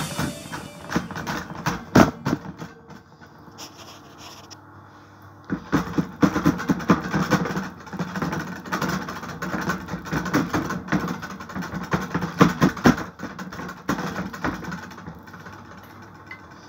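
Hands pressing and patting bread dough flat on a metal baking tray: irregular soft taps and knocks, sparse at first and busiest from about five seconds in, dying away near the end.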